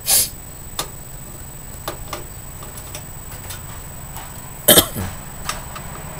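Screwdriver working the power supply's mounting screws against the steel computer case: scattered light metal clicks and ticks. Two short, louder noises stand out, one at the start and one near the end.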